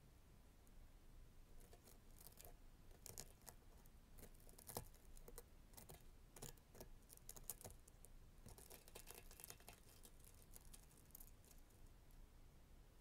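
A metal pick poking and scraping into a charred, torch-melted plastic figure on a metal surface: faint irregular clicks, scratches and crackles of crumbling char and tearing soft plastic, coming in small clusters.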